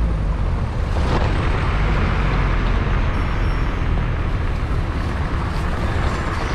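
Wind buffeting the microphone in a steady, loud rumble, mixed with busy street traffic.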